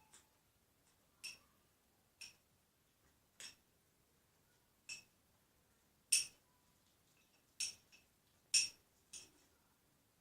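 A utensil clinking against a hard mixing container: about eight light, separate clinks at uneven intervals, each with a brief glassy ring.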